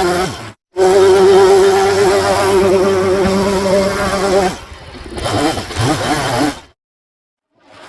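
Two-stroke chainsaw running at high revs, with a brief drop-out about half a second in. A little past halfway it falls back to lower, uneven revs, then cuts off abruptly near the end.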